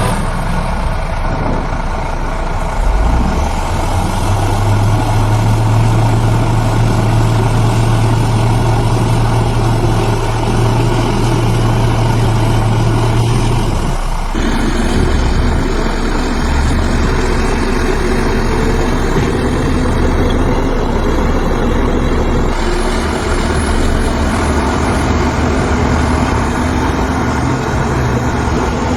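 Heavy diesel engines of earthmoving machinery running steadily, with a sudden change in the engine sound about halfway through.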